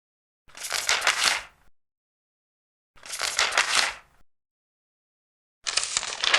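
Large paper pages being turned one after another: three rustling sweeps, each about a second long, roughly every two and a half seconds with dead silence between, the third starting near the end.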